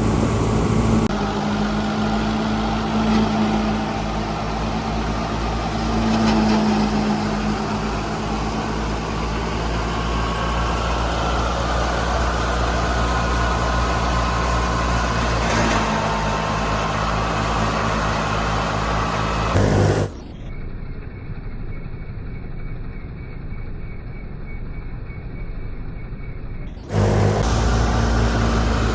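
Clayson 8080 combine harvester's engine and threshing machinery running steadily at working speed. About twenty seconds in the sound cuts to a quieter, duller stretch, and near the end it jumps back to full level.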